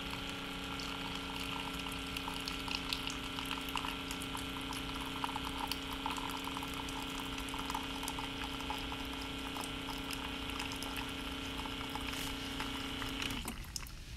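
A hot water dispenser humming steadily while it pours a thin stream of hot water into a paper cup, with many small splashes. The hum and the pour stop suddenly near the end.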